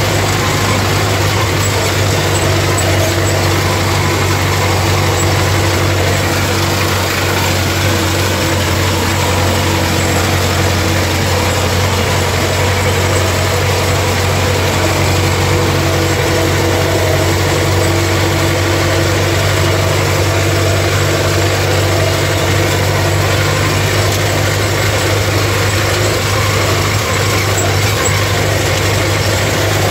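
MTZ-50 tractor's four-cylinder diesel engine running steadily at a constant speed, heard from inside the cab while it pulls a ZTR-165 rotary mower through grass.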